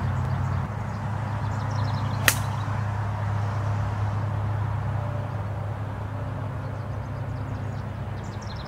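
A single sharp crack of a 7-iron striking a golf ball on a tee shot, about two seconds in, over a steady low rumble.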